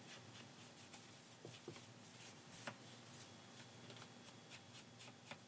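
Faint rubbing and light dabbing of an ink blending tool along the edges of a cardstock card, with a few soft ticks of paper being handled.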